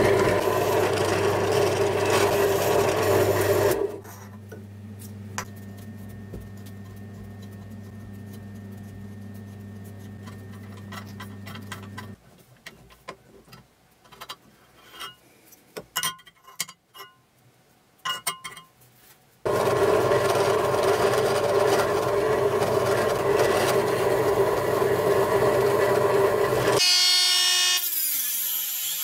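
Drill press cutting aluminium with a countersink bit, loud for about four seconds, then dropping to a steady low motor hum that stops about twelve seconds in. Small clicks of a screwdriver turning screws into the aluminium follow, then the loud machine noise returns for about seven seconds. Near the end a rotary tool with a cut-off disc takes over with a higher, ringing sound.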